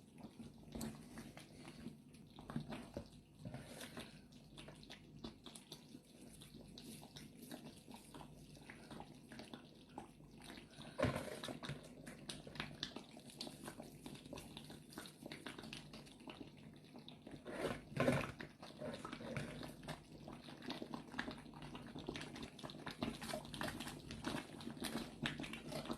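Banga soup being cooked in a pot: liquid sounds with many small irregular knocks and clicks, and two louder clatters about eleven and eighteen seconds in.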